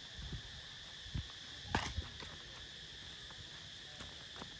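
Steady high-pitched drone of an insect chorus, with a few footsteps thumping and scuffing on stone paving, the loudest a little under two seconds in.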